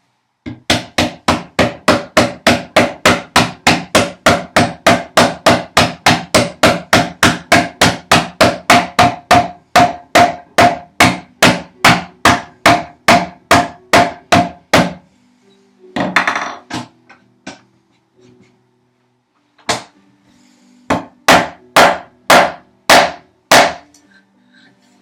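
A hammer tapping the dovetail joints of a wooden box together, a steady run of about three sharp knocks a second for some fifteen seconds. After a short rough scrape, one more knock and a final quick group of five follow near the end.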